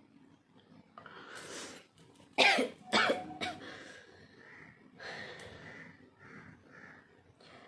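A woman draws a breath in and then sneezes, two loud explosive bursts about half a second apart, brought on by tickling the inside of her nose with a thin twisted strip of paper; softer breathing follows.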